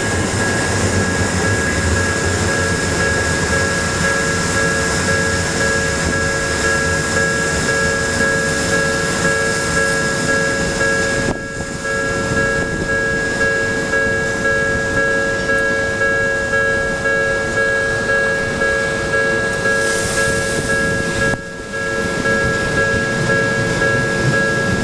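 Japanese railway level-crossing warning bell ringing in a steady repeating electronic ding of several fixed pitches, over the rumble of a train passing through the crossing. The sound dips out briefly twice, once about halfway and again near the end.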